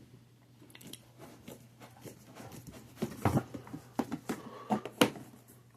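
Quiet handling sounds, a few light clicks and knocks, over a faint steady low hum.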